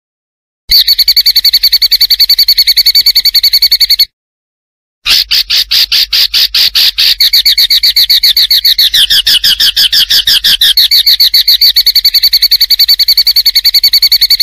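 Loud looped masteran recording of an animal's rapid pulsing trill, about ten high chirps a second, which dips in pitch in the middle and comes back up. It cuts to dead silence twice, as edited loops of training song for a white-rumped shama do.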